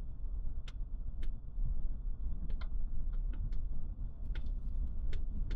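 A vehicle driving, heard from inside the cabin: a steady low rumble from the road and engine, with about a dozen sharp clicks and rattles at irregular times.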